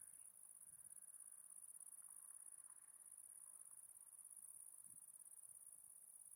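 Near silence, with a faint, steady, high-pitched insect chirring like crickets or grasshoppers in grass.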